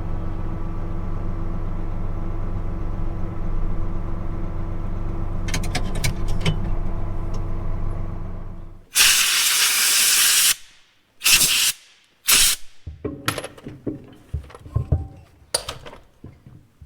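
Tractor engine running steadily, then dying away about nine seconds in. A loud burst of hissing about a second and a half long follows, then two short hisses and a scatter of metal knocks.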